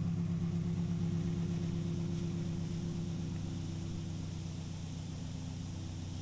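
Old farm tractor's engine running steadily as it tows felled trees on a chain, slowly fading as it pulls away.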